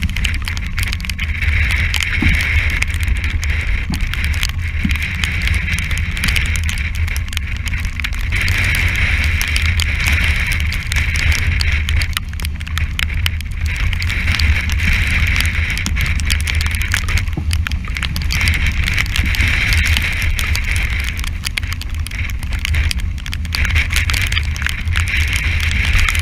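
Strong wind buffeting the microphone with a low rumble, over the hissing rush of sea and spray along a yacht's hull, which swells and fades every few seconds. Heavy weather at sea.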